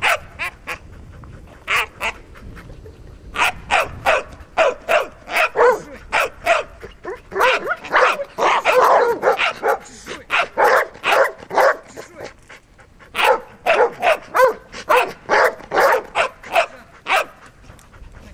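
Doberman barking in quick runs of short, loud barks, stirred up by a helper waving a rag at it in bite training.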